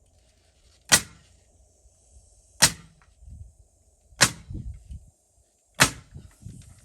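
Four sharp strikes, evenly spaced about a second and a half apart, each followed by a brief low thudding, as in construction work on a wall frame.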